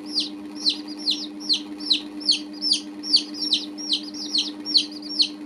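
Baby chicks peeping: a steady run of high, downward-sliding peeps, about two or three a second, over a steady low hum.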